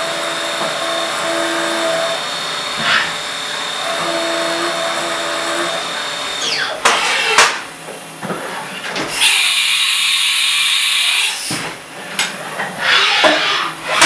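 A milling machine's end mill cutting an aluminium workpiece, a steady machining sound with a held tone. After about six and a half seconds the cutting stops, giving way to a few sharp knocks, a hiss lasting about two seconds, and more knocks near the end.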